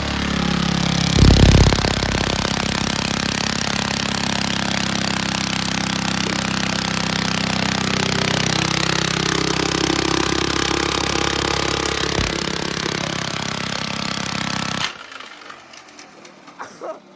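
Small lawnmower engine running hard with a loud, rapid rod knock, surging louder about a second in, then cutting out suddenly near the end: the sign of a failing connecting rod.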